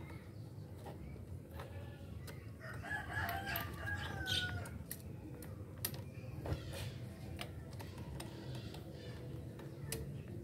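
A rooster crowing once, a drawn-out call about three seconds in that glides down at its end. Around it, a few light clicks of metal parts as the throttle cable is fitted to the motorcycle carburettor.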